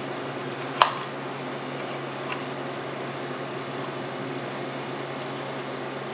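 A sharp metal click about a second in, then a faint tick, as the handle of a manual Cannon downrigger is fitted onto its shaft, over a steady hum.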